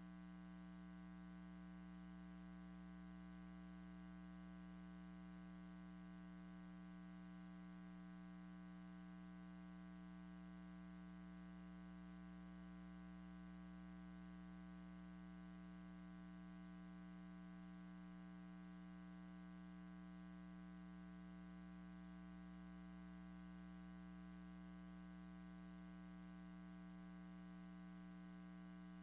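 Near silence with a steady electrical hum and buzz, a low tone with many even overtones over faint hiss.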